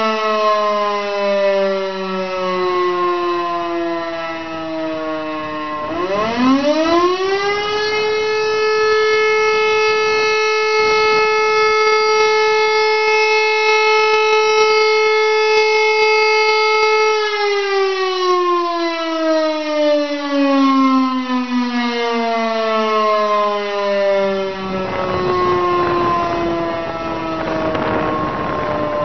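Elektror electric motor siren sounding the fire-alarm signal: its pitch sinks as the rotor coasts down, then about six seconds in it winds up to a steady held tone for about ten seconds, and sinks again as the power drops out between blasts. A rushing noise joins in near the end.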